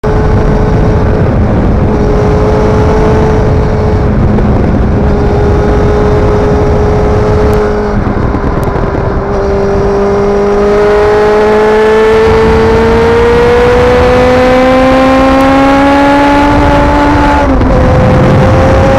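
Kawasaki ZX-9R inline-four engine running at cruising speed, with heavy wind rush on the microphone. About halfway through the engine note eases, then climbs steadily as the bike accelerates. Near the end the pitch drops sharply with an upshift.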